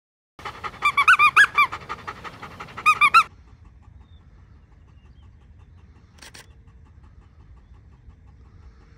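A dog panting fast, its breaths carrying high squeaky, whine-like notes, for about three seconds before it stops. A single sharp click follows a few seconds later.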